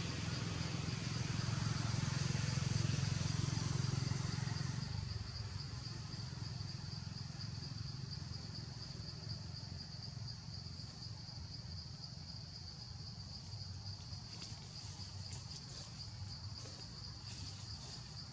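Insects droning in one steady high-pitched note, over a low rumble that drops away about five seconds in.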